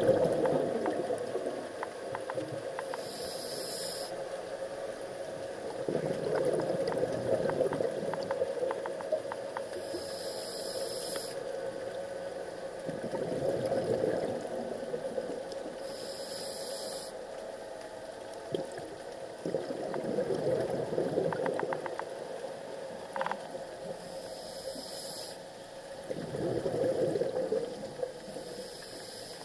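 Scuba diver breathing through a regulator underwater: a short hiss on each inhalation, then a longer burble of exhaled bubbles, repeating about every six or seven seconds.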